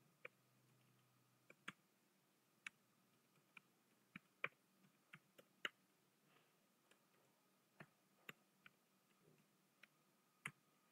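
Computer keyboard keystrokes: single key clicks in a slow, uneven run, as text is typed one key at a time.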